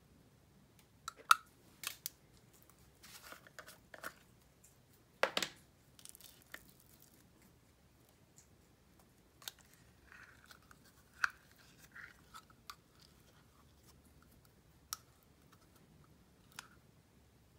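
Plastic spoon scooping and scraping slime out of small plastic jars into a glass bowl: scattered clicks and taps with brief soft squishy scrapes, the sharpest clicks about one and five seconds in.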